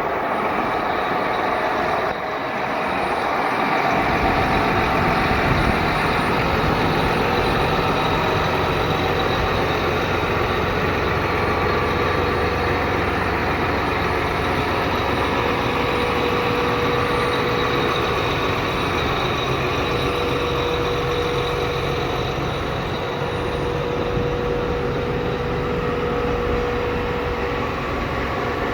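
John Deere 8270R tractor's 548-cubic-inch diesel engine running steadily.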